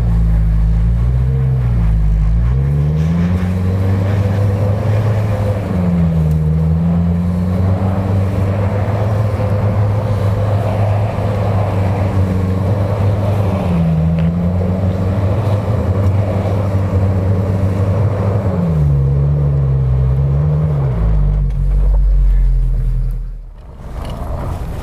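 Off-road SUV engine working hard up a steep snowy slope. The revs dip and climb again several times, then fall away sharply near the end.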